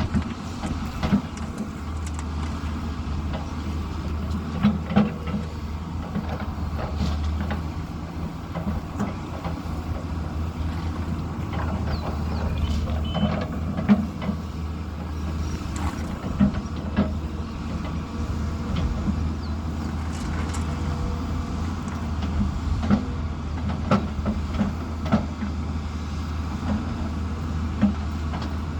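Diesel engine of heavy construction machinery running steadily as a low drone, with scattered short knocks throughout.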